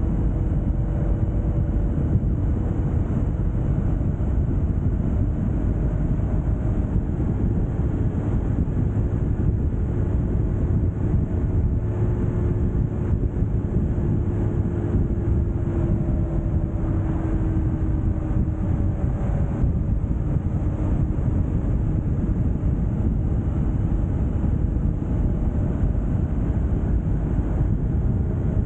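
Steady low road rumble of a vehicle travelling along a highway, with faint engine tones drifting slowly up and down in pitch.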